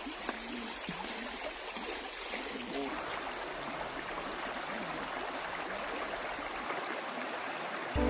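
River water flowing steadily, with faint voices now and then.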